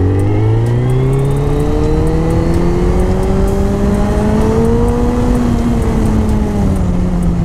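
Motorcycle engine pulling hard under acceleration, its pitch climbing steadily for about five seconds and then easing back down near the end, with wind rushing over the microphone.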